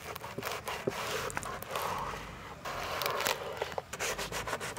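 Large kitchen knife cutting through a crisp fried paratha on a wooden chopping board: a rasping scrape of the blade through the crust with many short clicks and knocks of the knife on the board.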